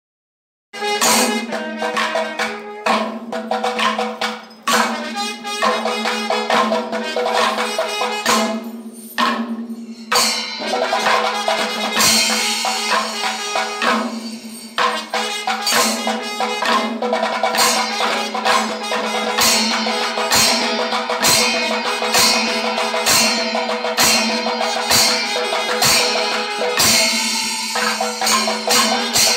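Kerala temple percussion ensemble (chenda melam): chenda drums and ilathalam hand cymbals playing densely, with a steady held tone underneath, starting suddenly about a second in.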